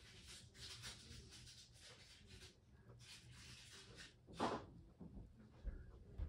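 Faint rustling and handling noises, with one louder bump about four and a half seconds in.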